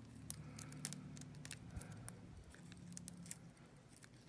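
Faint, irregular light clicks and scrapes of a lock pick and tension wrench working the wafers inside a wafer padlock's keyway.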